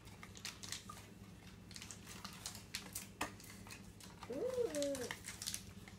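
Small scissors snipping, with paper and cardboard being handled in short clicks and rustles. About four seconds in, a child gives a brief hum that rises and falls in pitch.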